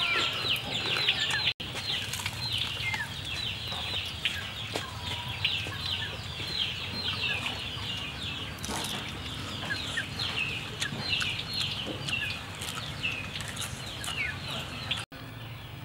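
Chicks peeping over and over in short, high, falling notes, with a few crisp crunches as pieces of fried frog are bitten and chewed.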